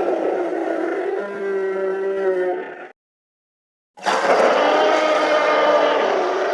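Tyrannosaurus rex roar sound effects, two in a row: a long, deep roar that cuts off about three seconds in, then after a second of silence a second loud roar begins.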